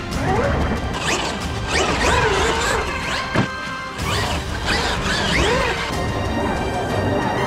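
Background music, over which the RC monster truck's brushless electric motor whines up and down in quick bursts of throttle, with a sharp knock about halfway through.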